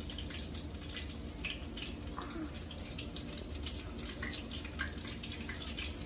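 Steady sizzling hiss with scattered small crackles and pops: beer-battered smelt frying in hot oil.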